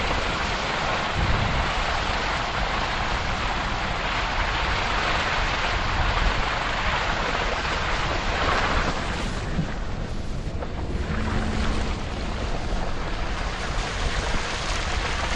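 Wind buffeting the microphone: a steady rushing noise with a heavy low rumble that eases briefly about ten seconds in.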